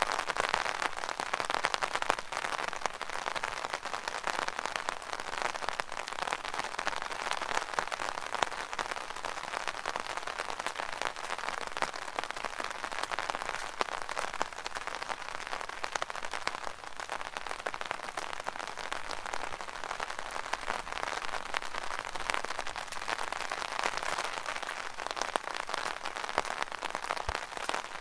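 Rain drumming on an umbrella canopy: a dense, steady patter of countless small drop impacts.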